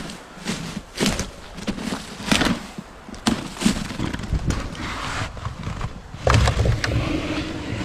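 Handling noise: a run of irregular clicks, knocks and rustling as equipment is moved and fiddled with, with a heavier thump and low rumble about six and a half seconds in.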